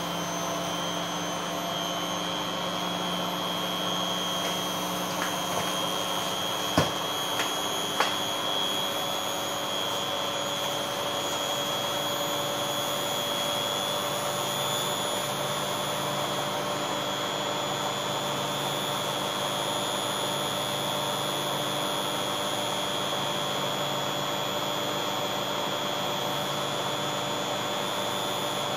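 Beko front-loading washing machine on its spin cycle: a steady motor whine and hum, with three brief clicks about seven to eight seconds in.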